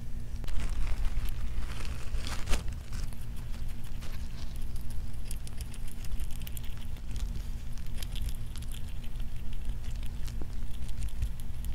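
A pet rat gnawing and chewing a piece of food: a rapid, uneven run of small crunchy clicks and crackles, over a low steady hum.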